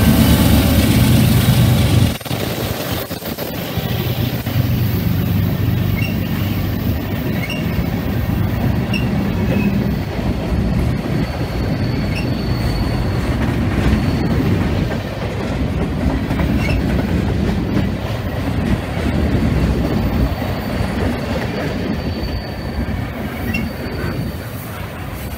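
Diesel freight locomotives pass close with a loud low engine rumble. About two seconds in, the sound drops abruptly to a freight train's cars rolling past, wheels rumbling on the rails, with short high squeals here and there.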